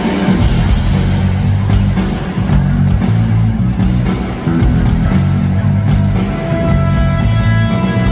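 Loud rock music with guitar over a heavy, dense bass.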